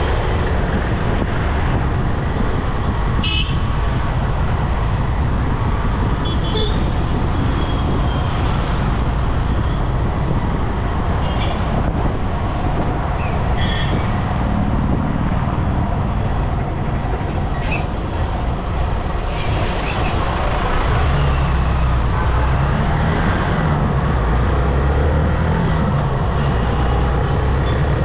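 Road traffic heard from a moving vehicle: steady engine and tyre noise, with short horn toots several times. A deeper engine rumble of a heavy vehicle comes in about two-thirds of the way through.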